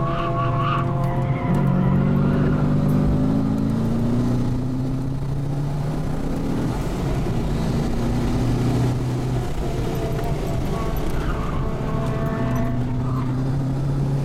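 Twin-turbo 6.0-litre V8 of a Holden Commodore SS wagon heard from inside the cabin while lapping a track. The engine note climbs in pitch under acceleration a second or two in, then holds steadier as the car is eased through corners.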